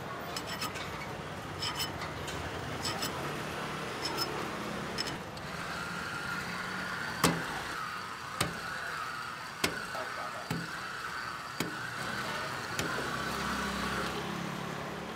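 Handheld electric kebab slicer running against a vertical chicken shawarma rotisserie: a steady motor whine from about five seconds in as it shaves the meat, with a few sharp clicks. Light clinking comes before the slicer starts.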